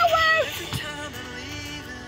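A girl singing loudly along, breaking off about half a second in, then a song playing through a phone's speaker: a man singing to acoustic guitar.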